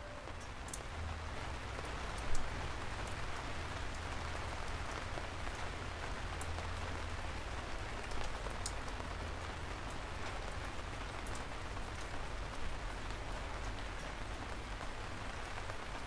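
Steady rain falling, an even hiss with scattered drops tapping and a low rumble underneath. One louder tap comes about two seconds in.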